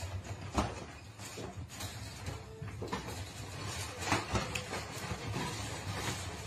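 Wire pet crate rattling and knocking as a cat scrambles about inside it: scattered short clanks at uneven intervals.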